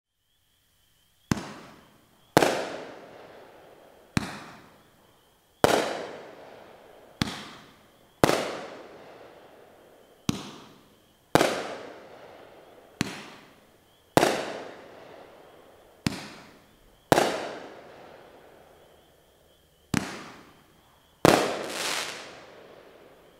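Vampire Hunter 8-shot consumer firework cake firing its shots. About every three seconds there is a sharp launch thump, then about a second later a louder aerial break whose sound fades out over a second or two. The last break, near the end, is a quick double bang.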